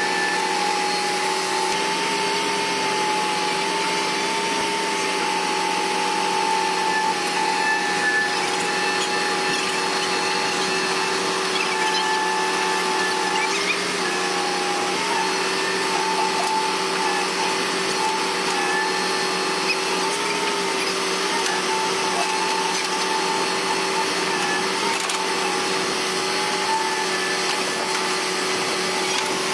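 Bulldozer diesel engines running steadily, a continuous mechanical hum and whine that wavers slightly in pitch without stopping.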